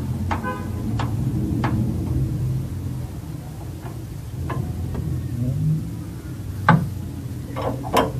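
A low, steady engine-like hum, with several sharp metallic clicks and knocks from hand tools working on the engine. The two loudest knocks come near the end.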